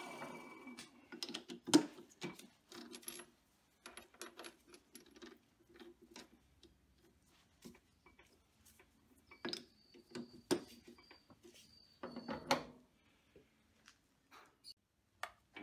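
An Optimum metal lathe winding down in the first second. Then scattered sharp metal clicks and clinks as the stainless steel rod is handled and reset in the three-jaw chuck, the loudest about two seconds in and again around ten to twelve seconds in.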